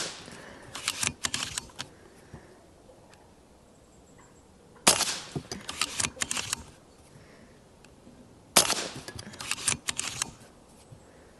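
Brocock Ghost .30 PCP air rifle firing twice, sharp cracks about five seconds in and three and a half seconds later, each followed by a quick run of mechanical clicks as the action is cycled to chamber the next pellet.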